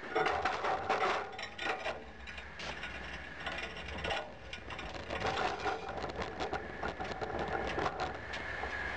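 Irregular clanking, scraping and rattling of a steel crucible shank being handled while it lifts and carries a red-hot crucible, picked up by a camera mounted on the shank itself, so every knock of the metal frame comes through close and loud.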